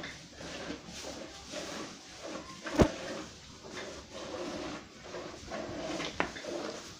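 Cow being milked by hand: jets of milk squirting into a steel bucket in an even rhythm of about two squirts a second. A sharp knock a little under three seconds in is the loudest sound.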